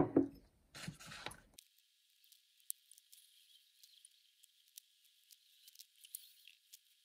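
A knock on the desk as a ceramic cup is handled, with a short rustle just after. Then faint, crisp paper rustling and small ticks as fingers move over and lift the pages of a thick paperback book.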